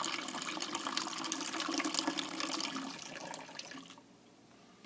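Water running from a dispenser into a container, with a steady low hum, cutting off about four seconds in.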